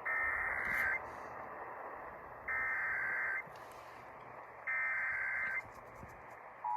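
Emergency Alert System SAME header received over AM radio: three bursts of digital data tones, each just under a second long and about a second apart, with radio hiss between them. The two-tone EAS attention signal starts just at the end.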